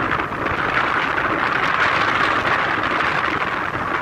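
Strong wind rushing steadily over the microphone, a loud even hiss.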